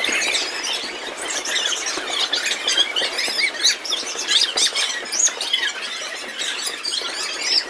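Children squealing in play, many short high cries overlapping one another.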